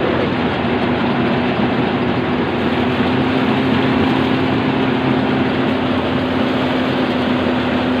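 Engine-driven portable rice thresher running steadily with a constant hum as rice stalks are fed by hand into its threshing drum.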